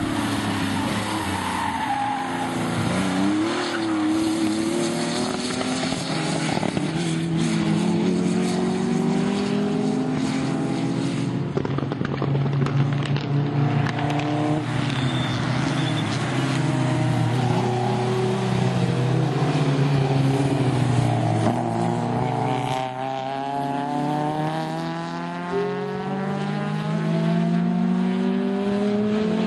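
Sports car engine running hard at high revs, its pitch climbing under acceleration and dropping back on lifts and gear changes several times, with a long climb near the end.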